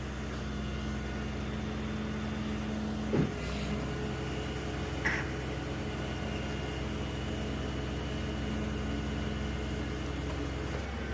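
Large tandem-axle rollback tow truck's engine idling steadily, with two brief knocks about three and five seconds in.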